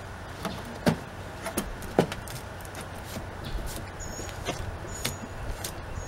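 Sharp clicks and knocks from handling the seat of a Gravely riding mower, its engine off; the two loudest knocks fall about a second apart. In the second half a short high chirp repeats about once a second.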